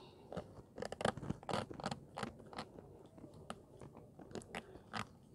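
Stiff cardboard lid being pressed and worked into a tight fit on a metal loaf tin: faint, irregular scrapes and clicks of card against the tin's edges.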